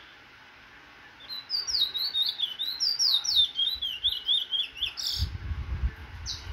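Caged Trinidad bullfinch (chestnut-bellied seed finch) singing: a fast run of high, falling twittering notes lasting about three and a half seconds, then two sharp single notes. A low rumble sounds under the second half.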